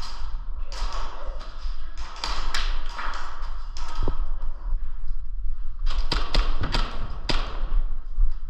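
Sharp cracks of airsoft pistol fire, with thumps and taps, coming in short irregular strings about two seconds in and again near the end.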